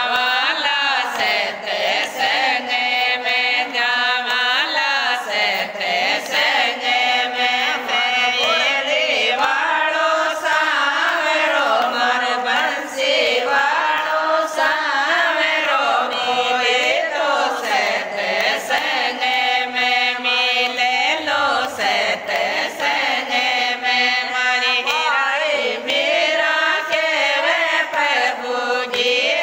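Group of women singing a Hindi devotional bhajan to Lord Krishna, with hand claps keeping the beat.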